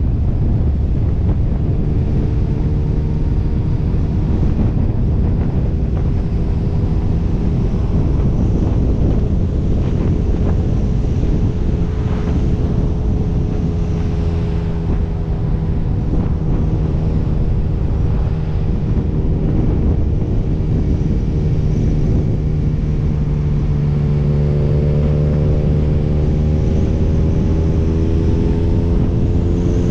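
Motorcycle engine running at a steady road speed, its pitch drifting gently up and down with the throttle, with wind buffeting the camera microphone.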